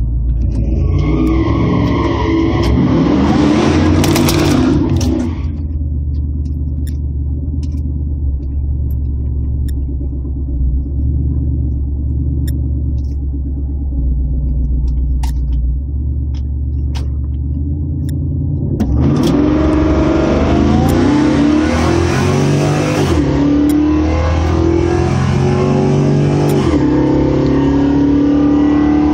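V8 engines of a Ford F-150 SVT Lightning and a Nissan Titan pickup at a drag strip: revved up hard for the first few seconds, then a steady idle rumble while staging, then a full-throttle launch about two-thirds of the way in, the pitch climbing and dropping back at each gear change.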